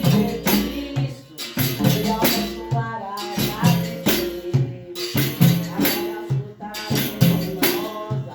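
Capoeira roda music: berimbau with shaken and struck hand percussion keeping a steady beat, and voices singing over it.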